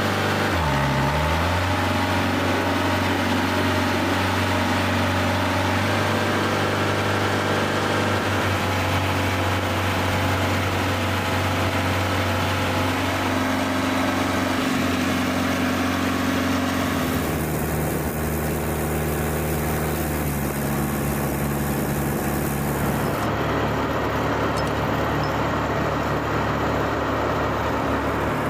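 Engine of a mobile aircraft arresting gear running steadily. Its pitch dips and recovers about a second in, and the engine tone shifts twice, about two-thirds through and near the end.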